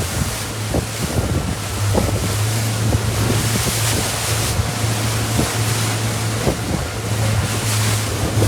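Motorboat engine running with a steady low hum, under wind buffeting the microphone and the wash of water against the hull.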